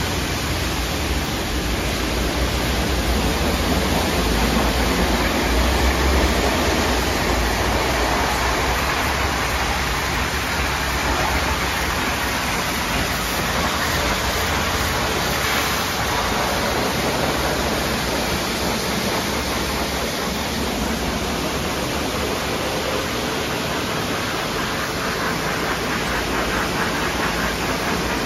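Istobal M'Start rollover car wash running its brush wash: spinning wash brushes and spraying water make a steady rush over the car.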